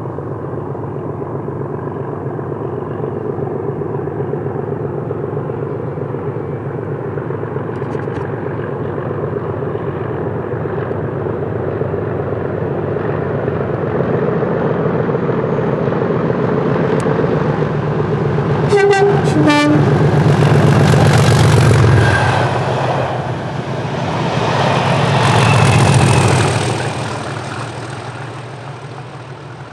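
Class 37 diesel locomotives' English Electric V12 engines working hard as they approach, thrashing under power. The horn gives two short notes, high then low, about two-thirds of the way through. The lead locomotive passes loudest just after, the rear locomotive passes a few seconds later, and then the sound fades.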